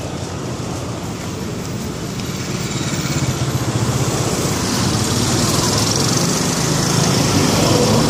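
Street traffic with a vehicle engine running close by, getting louder about three seconds in.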